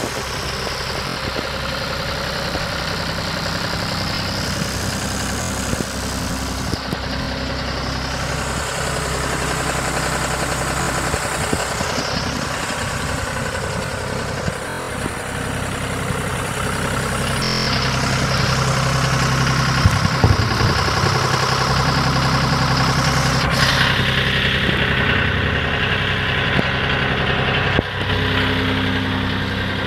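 John Deere 5303 tractor's three-cylinder diesel engine idling steadily.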